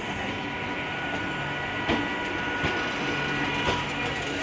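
Electric local train running with a steady mechanical hum and several thin whining tones, with a few short knocks.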